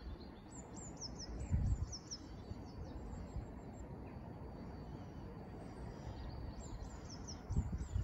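A small songbird singing short phrases of quick, descending high chirps, about a second in and again near the end, over a low, uneven outdoor rumble.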